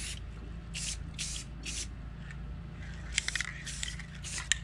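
Rust-Oleum 2X Ultra Cover aerosol spray paint can spraying in short hissing bursts of about half a second each: three in the first two seconds, then four more close together near the end, with a few sharp clicks among them.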